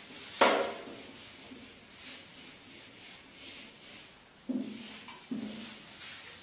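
Whiteboard being wiped with a duster: a run of rubbing, swishing strokes, with a sharper knock about half a second in and two more near the end.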